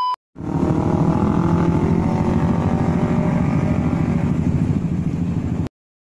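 Motorcycle engine running steadily with a dense, even exhaust note, then cutting off suddenly near the end. It starts just after the tail of a short electronic test-tone beep.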